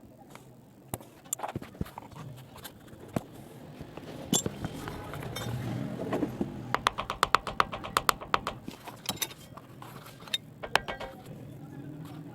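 Shoe-repair work on a sandal heel: scattered sharp taps and clicks of tools against the heel, with a quick run of light, rapid taps around the middle.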